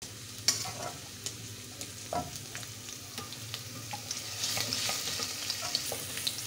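Onion, garlic and whole spices sizzling in hot oil in a clay handi while stirred with a spoon. A steady frying hiss runs throughout, broken by sharp scrapes and taps of the spoon against the pot.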